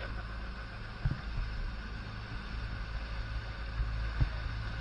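Fishing boat's engine running with a steady low hum, under a wash of wind and water hiss, with a couple of brief soft knocks about a second in and near the end.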